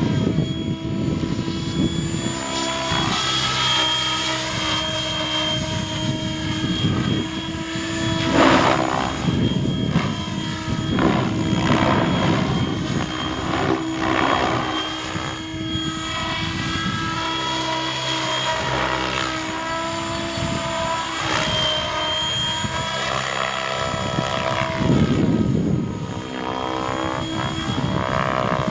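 Electric RC helicopter with a brushless motor in flight: a steady high whine from motor and rotors whose pitch wavers as it manoeuvres, with several louder whooshing surges of the rotor blades.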